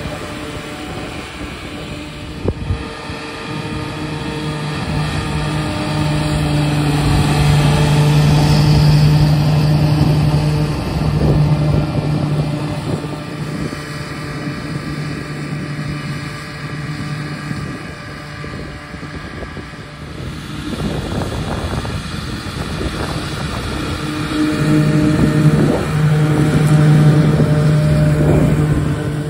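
Claas Arion 540 tractor running under load while its Kubota triple mower cuts grass: a steady engine and machinery hum that swells twice as the tractor passes close and fades in between.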